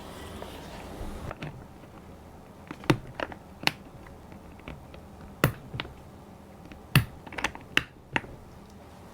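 Scattered sharp clicks and taps from the Skyloong GK68HE aluminium keyboard being handled during a teardown attempt, about nine at uneven intervals.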